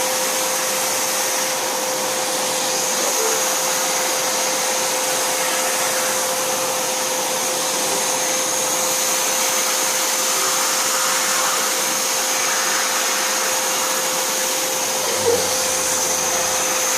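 Vacuum cleaner running steadily while being passed over a dog's coat: an even rush of air with a steady hum and a high whine. A brief bump near the end.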